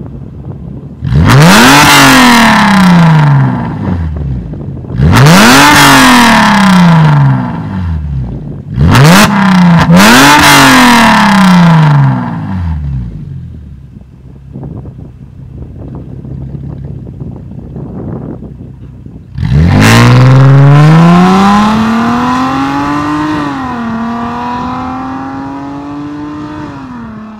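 Mercedes-Benz W212 E350's 3.5-litre V6 through a valved aftermarket exhaust (catless pipes, X-pipe) with the valves open: three sharp free revs, each climbing and falling back to idle, then idling. About two-thirds of the way in, a hard full-throttle take-off follows, with one drop in pitch at a gear change, and the sound fades as the car pulls away.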